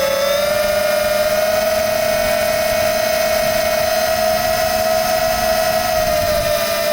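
Electric motors and propellers of a multirotor FPV drone in flight, a steady high whine. Its pitch rises a little at the start and dips slightly near the end as the throttle changes.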